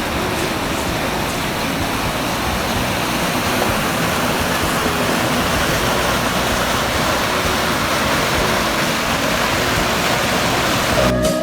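Rapids of a river swollen by heavy winter rain, the water rushing steadily. Music comes in at the very end.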